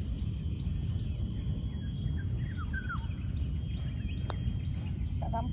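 Steady high-pitched insect chorus over a low rumble, with a few faint bird chirps. About four seconds in comes a single light click: a putter striking the golf ball.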